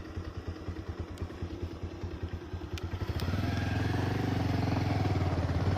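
Motorcycle engine putting along with an even low pulse, then about three seconds in it opens up and runs louder and steadier as the bike pulls away, with a couple of sharp clicks just before.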